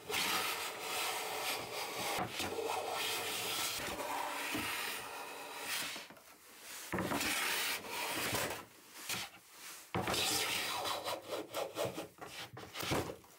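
A restored Stanley No. 7 jointer plane cutting along a chestnut board: the hiss of the iron shaving the wood in several passes, the first long, then shorter strokes with brief breaks between them.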